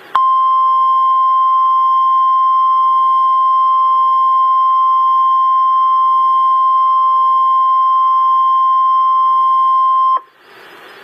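NOAA Weather Radio warning alarm tone: one steady, loud, pure tone near 1050 Hz held for about ten seconds, announcing that a severe-weather watch or warning message follows. It cuts off near the end, leaving faint radio hiss.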